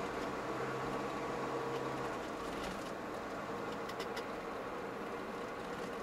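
Car engine and road noise heard from inside the cabin of a moving car: a steady hum.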